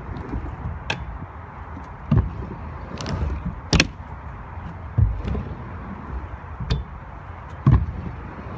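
Stunt scooter wheels rolling on the skatepark ramp and ground: a steady rough rumble broken by sharp knocks every second or so, about half a dozen in all, as the deck and wheels hit the ramp.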